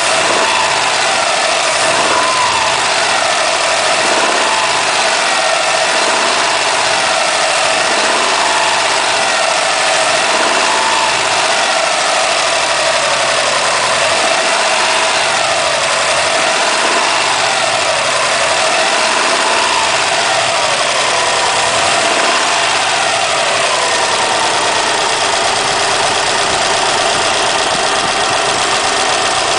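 2008 Subaru WRX turbocharged flat-four engine revved lightly over and over, its pitch rising and falling about every two seconds, then settling to a steadier idle near the end. The light revs bring out an odd noise that the owner finds only between 1500 and 2300 rpm.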